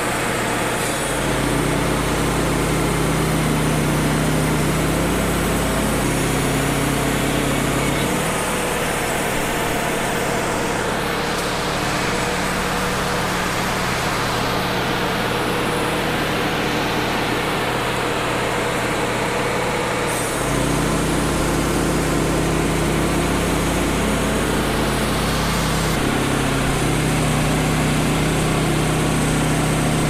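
Wood-Mizer LT35 portable band sawmill running, its engine and band blade cutting along a red oak cant. The engine note shifts several times as the load changes.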